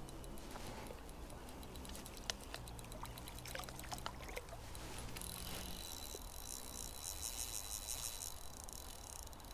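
Insect chirring outdoors: a fast, even pulsing buzz with a thin steady tone beneath it, starting about five seconds in. Before it, faint scattered light clicks and ticks.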